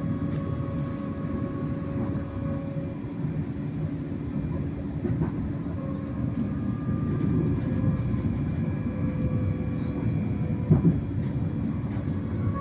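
A passenger train running at speed, heard from inside the carriage: a steady rumble of wheels on rail with a few faint steady tones above it. A brief knock sounds near the end.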